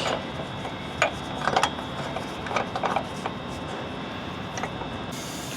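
A few light, scattered metallic clicks and clinks: body-mount hardware (bolts, cups, nuts) being handled and started by hand over a steady low background noise.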